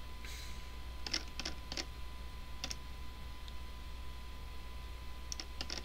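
Scattered light clicks from a computer mouse and keyboard, about half a dozen at irregular intervals, over a faint steady electrical hum.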